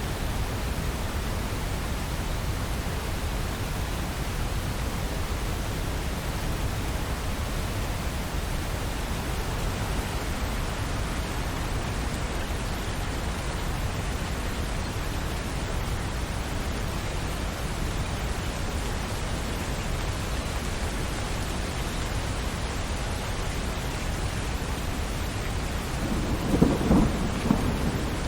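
Steady rainfall hissing, with a low rumble of thunder rolling in near the end.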